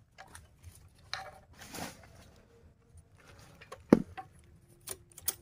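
Scattered light clicks and short scrapes of hand work on a Stihl 070 chainsaw's bar and chain with the engine off, as the loose chain is tensioned, with one sharp click about four seconds in.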